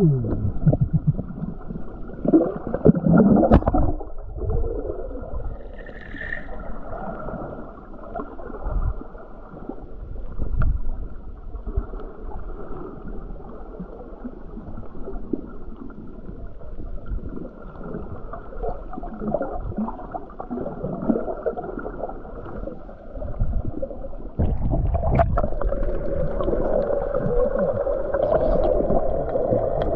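Muffled underwater sound of moving water and bubbling, dull and cut off above the middle range, with a brief high tone about six seconds in. It turns into a steadier, louder rush near the end.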